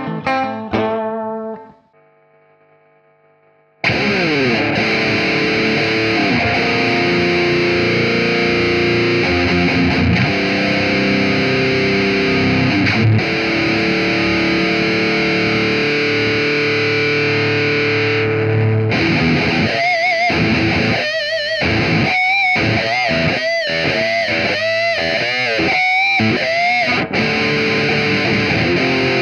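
Electric guitar played with heavy distortion. A passage fades out about two seconds in, and after a short near-quiet gap the guitar comes in with dense riffs and sliding notes. About fifteen seconds later it changes to a choppier lead line with bent, wavering notes.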